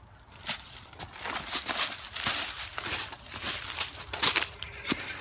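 Broom bristles scrubbing along a painted metal railing: a run of rough, scratchy swishing strokes, several a second, with a few sharper scrapes.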